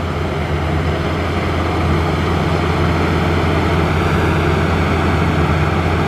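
Maxxi Bimo 110 Plus rice combine harvester running steadily while cutting and threshing the standing crop: a loud, even engine hum with the noise of the header and threshing machinery on top.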